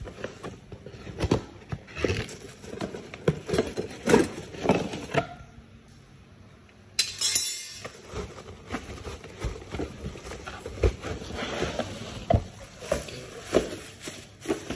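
Irregular knocks, clunks and rustling from handling a boxed PAR LED stage light and its packaging, with a short lull about five seconds in and a sharp rustle about seven seconds in.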